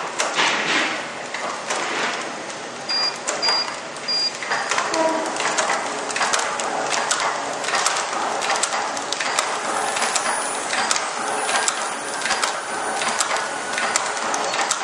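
Automatic packaging machine running, with a dense, rapid mechanical clatter of clicks and knocks. About three seconds in come three short, high electronic beeps, keypresses on its touch panel as the packaging speed is changed.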